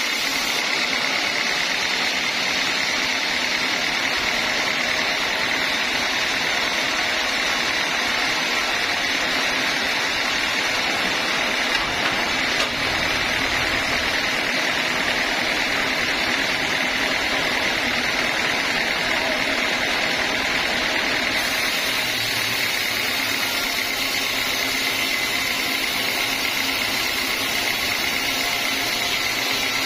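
Homemade sawmill band saw running steadily, a continuous mechanical noise with a constant high whine.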